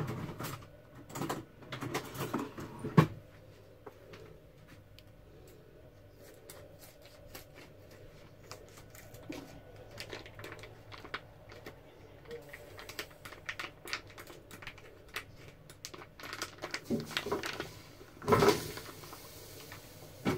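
Plastic food packaging crinkling and rustling as it is handled and opened, with scattered small clicks and knocks, and a louder burst of rustling near the end.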